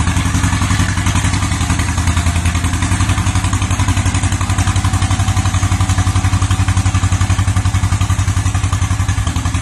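John Deere two-cylinder crawler bulldozer engine running at a steady speed with an even, rapid putt-putt beat.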